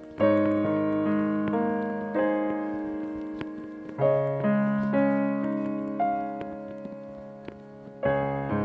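Slow solo piano music: a new chord struck about every two seconds, each ringing on and fading before the next.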